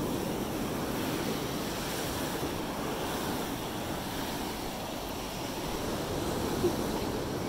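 Steady wash of ocean surf on a beach, with wind buffeting the microphone.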